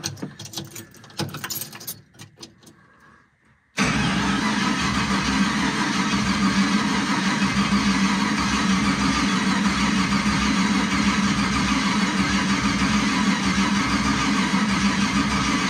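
Starter cranking over a turbocharged 4.8-litre LS V8 without it firing: a few light clicks, then a steady cranking sound that starts suddenly about four seconds in and runs on evenly. The engine is being cranked to prime oil pressure before its first start, and the owner thinks the hot starter isn't spinning it fast enough to build any.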